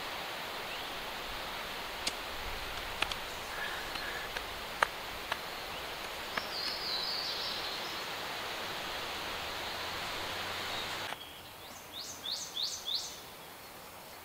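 Outdoor ambience: a steady rushing hiss of wind in the trees, with a few light clicks and a bird chirping. The hiss drops away about eleven seconds in, and a bird then gives five quick rising chirps.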